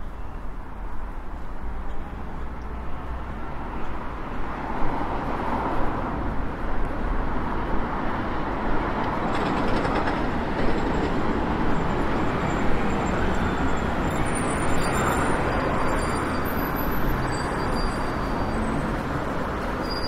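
Passing vehicle noise, a steady rumble that swells about four seconds in and holds, with faint high squeaks in the last few seconds.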